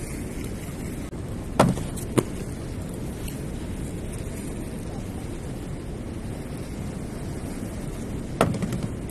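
Inline skates knocking on a wooden grind box: two sharp knocks a couple of seconds in, then a short clatter of knocks near the end as a skater lands on the box. Steady outdoor noise underneath.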